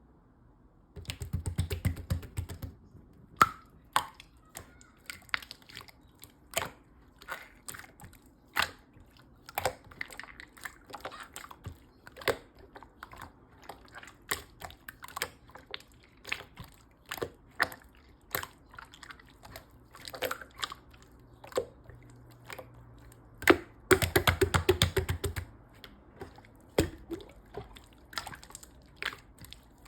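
Opaque light-purple slime being squished and pressed by hand, giving wet clicks and pops. Twice it breaks into a fast run of crackling pops, about a second in and again later on.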